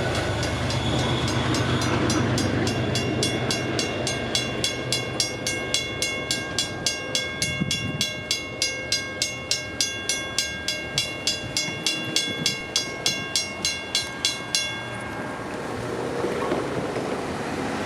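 Railroad crossing bell (a WCH first-generation bell) ringing in steady strokes, about two to three a second, over the rumble of a train on the tracks. The bell cuts off suddenly about 15 seconds in as the crossing signals deactivate.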